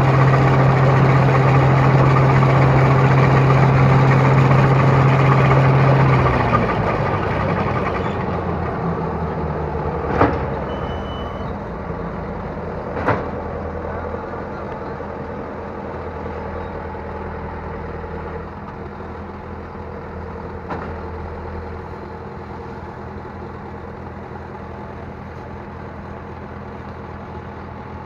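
Rice harvester engine running steadily at high revs, then dropping to a lower, quieter speed about six seconds in and running on, with two sharp knocks about three seconds apart a few seconds later.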